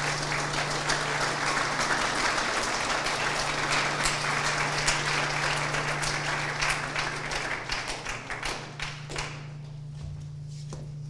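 Audience applauding, dense and steady, then thinning out and dying away about nine seconds in.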